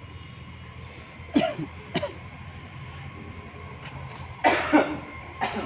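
A person coughing in short bursts: twice about a second and a half in, then a longer double cough and one more near the end, over a steady low rumble.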